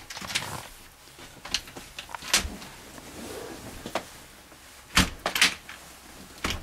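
Knocks and clicks of a wooden cabin panel being pressed and worked free to open the engine compartment: a scatter of sharp taps, the loudest pair about five seconds in.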